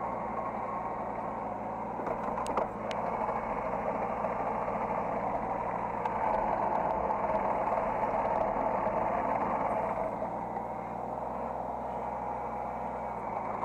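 Hydraulic excavator's diesel engine running, heard from the operator's cab. It gets louder about six seconds in and eases off again near ten seconds, with a few sharp clicks between two and three seconds in.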